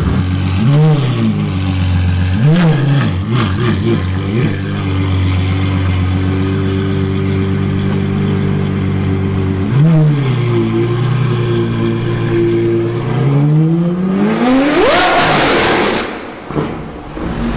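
V12 Ferrari engine with an aftermarket exhaust revving in short blips, with a quick run of blips about three to four seconds in, holding a steady note between them. After another blip near ten seconds it accelerates with a long rising note that peaks loudly and then drops away near the end.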